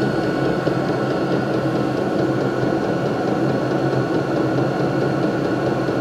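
Vevor 12 V 8 kW diesel air heater running steadily once fully lit. Its combustion blower and burner make an even hum, with a thin steady whine on top.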